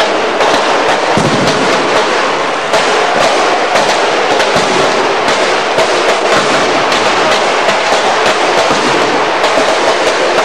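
Football stadium crowd noise with firecrackers crackling, many small sharp pops going off in quick succession.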